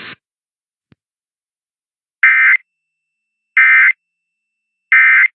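Emergency Alert System end-of-message signal: three short, identical bursts of digital data screech, about a second and a half apart, marking the end of the test alert.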